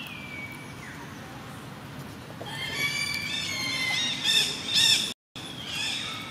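Baby long-tailed macaque crying: a faint falling squeal at the start, then from a little before halfway a run of loud, high-pitched, wavering screams, loudest near the end.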